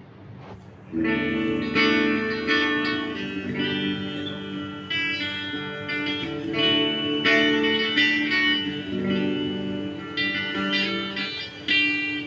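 Jay Turser JT-50 SG-style electric guitar with humbucker pickups, played through an amplifier: chords and ringing notes starting about a second in, with several strong strums.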